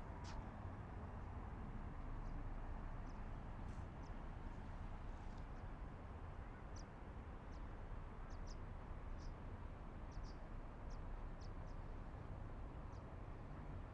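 Steady low rumble of city ambience, with a dozen or more short high-pitched bird chirps scattered irregularly over it.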